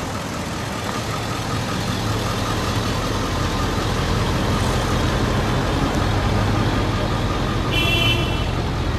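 Motor vehicle engine idling steadily, with street traffic noise around it. A brief high-pitched tone sounds a little before the end.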